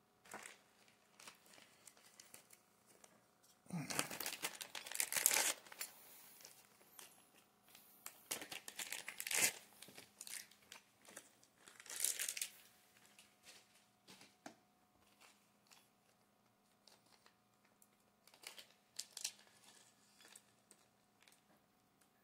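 Small clear plastic parts bag of screws crinkling as it is handled, in several bursts, the longest lasting about two seconds starting about four seconds in.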